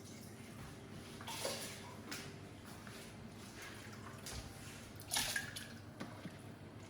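Water splashing briefly, about a second and a half in and again, louder, about five seconds in, with a few small drips or splashes between, over a steady low hum.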